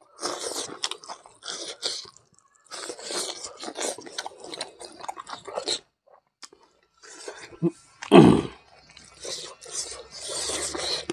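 Close-up, wet chewing of cooked mithun intestine with rice: uneven clusters of squishy mouth noises with gaps between mouthfuls. About eight seconds in comes one brief, louder and deeper mouth noise.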